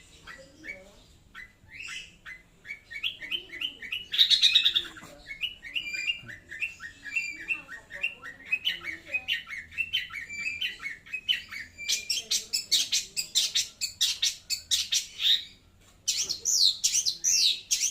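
Long-tailed shrike (cendet) singing loudly: strings of short chirps, then about twelve seconds in a louder, rapid run of harsh notes, broken by a short pause near sixteen seconds before the bird starts again.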